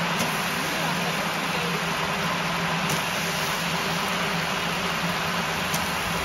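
Mint and coriander leaves sizzling in hot oil in a large aluminium biryani pot, over the steady roar of a high-pressure gas burner.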